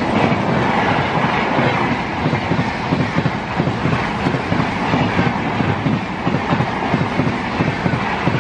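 An Indian Railways express train rolling past, its coach wheels clattering rapidly and continuously over the rail joints, with no horn.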